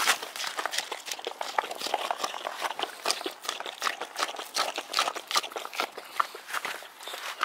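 Boxer puppy licking and eating frozen dog ice cream: a fast, irregular run of wet clicks and smacks.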